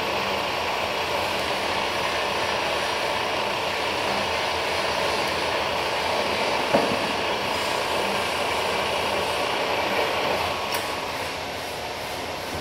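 Power metal-cutting saw running steadily through a cut, a continuous mechanical whir with one sharp metallic knock about seven seconds in. The noise drops off slightly near the end.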